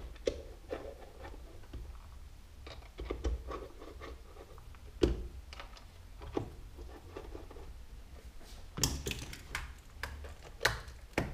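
Small clicks, taps and scrapes of hand tools and parts being handled: screwdrivers working screws into a small metal connector module and D-sub plugs being fitted to it. The clicks are scattered, with a quicker run of sharper clicks about nine seconds in.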